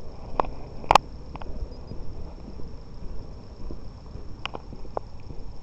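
Walking outdoors: a steady low rumble of steps and handling, a few sharp clicks, the loudest about a second in, over a thin steady high-pitched tone.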